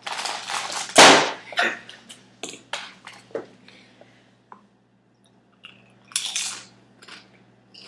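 Crinkling and rustling of a plastic chip bag as chips are pulled out, the loudest crackle about a second in, then a crunch around six seconds in as a chip is bitten.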